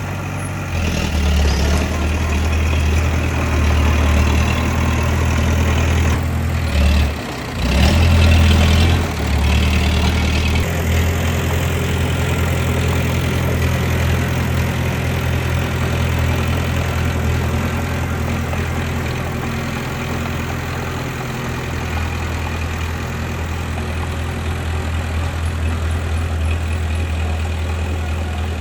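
Bulldozer's diesel engine running steadily with a low drone, briefly dropping out twice about seven and nine seconds in.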